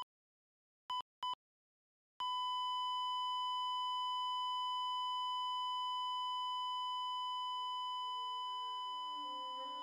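Patient heart monitor giving two quick beeps, then a single unbroken flatline tone from about two seconds in, signalling that the heart has stopped. The tone holds and slowly fades as soft music comes in beneath it near the end.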